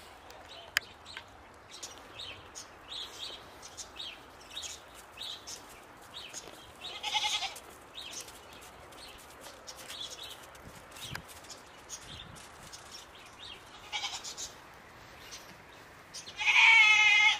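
Goats bleating: a short bleat about seven seconds in, a brief one near fourteen seconds, and a loud, quavering bleat near the end.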